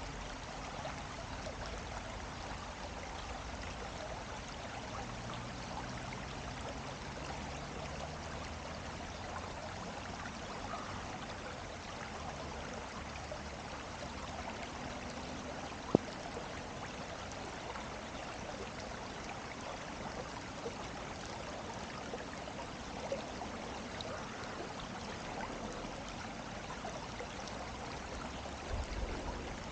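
Steady rush of flowing water, with a single sharp click about halfway through and a few low thumps near the end.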